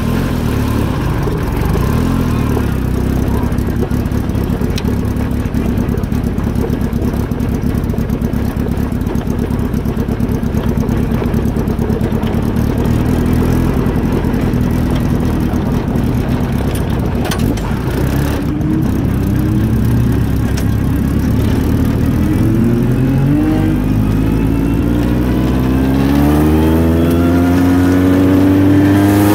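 Engine running steadily, then revving up with its pitch climbing over the last third, getting a little louder near the end.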